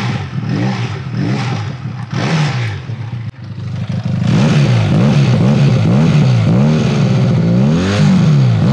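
Benelli Leoncino 500's parallel-twin engine revved by hand at a standstill: lighter revs for the first few seconds, then a louder, quick run of throttle blips, one to two a second, from about four seconds in, with one longer rev near the end. The smooth note doesn't sound like a twin; the owner likens it to an inline three or four.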